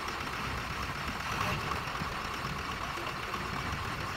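Ford F-350 pickup's turbo diesel engine idling steadily.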